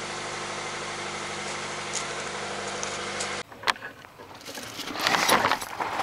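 Toyota 86's 2.0-litre flat-four boxer engine idling steadily. About three and a half seconds in it cuts off abruptly, giving way to scattered clicks and rustling of handling.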